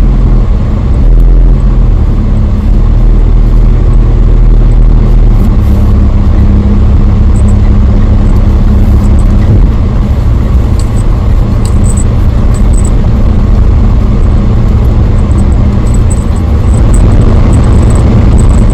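Loud, muffled, steady rumbling from a thumb held over the phone's microphone while filming, with the sound heavy in the low end.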